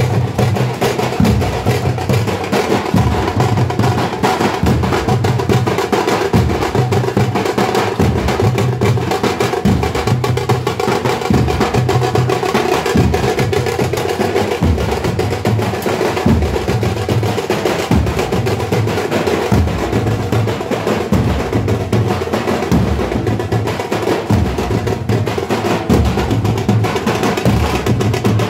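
Tamate frame drums played together in a fast, driving, unbroken rhythm.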